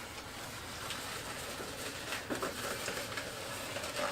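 Latex twisting balloons being handled and twisted, giving short scattered rubbing squeaks from about two seconds in.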